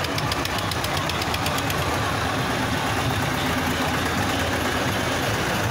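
Diesel farm tractor engines running steadily as a line of tractors drives past one after another.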